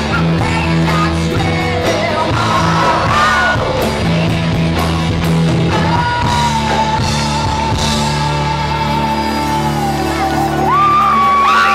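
Live rock band playing: electric guitars, bass and drums with a woman singing. A long held high note sounds over the band for several seconds, then rises near the end.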